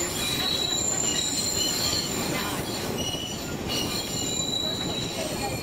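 Narrow-gauge sugar-cane railway train running along the track, heard from on board: a steady rumble from the wheels and carriage, with high thin wheel squeals that come and go.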